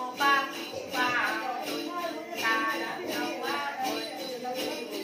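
Then ritual chant: a man singing to a plucked đàn tính gourd lute, with a bunch of small jingle bells (chùm xóc nhạc) shaken in a steady beat.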